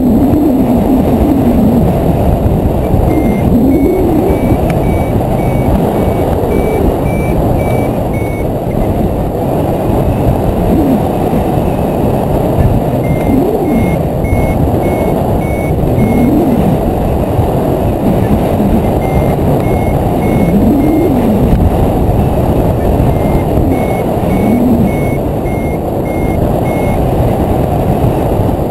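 Loud wind rushing over the microphone of a hang glider in flight. Over it, a flight variometer beeps in runs of about two short beeps a second, its pitch shifting slightly, which signals that the glider is climbing in lift.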